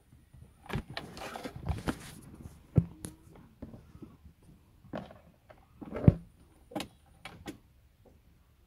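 Scattered sharp clicks and knocks with a few short rustles, inside the cabin of a Tata Indica diesel while the engine is not running.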